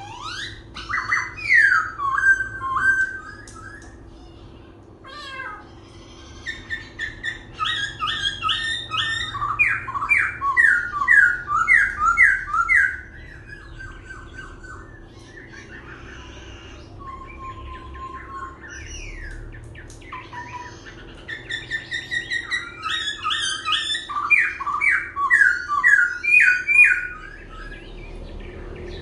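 Laughingthrush (khướu) singing, switching continuously between song types. It gives loud phrases of rapid, repeated, sliding whistled notes in three bouts, with shorter quiet spells between.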